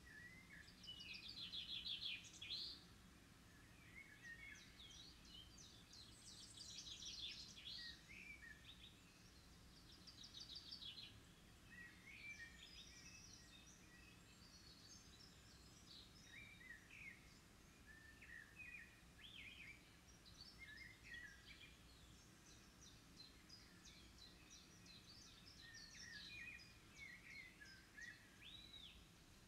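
Faint outdoor songbirds chirping and trilling on and off, with the strongest trills about a second in and again around seven and ten seconds, over a quiet steady background hum.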